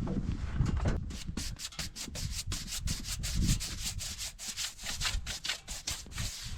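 Quick, even rubbing strokes, about six a second, across the surface of a freshly sawn spalted maple board.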